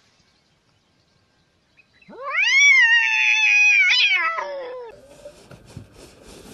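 A cat yowling once: a long, loud call of about three seconds that starts after two seconds of near silence, climbs sharply in pitch, holds, then slides down and fades.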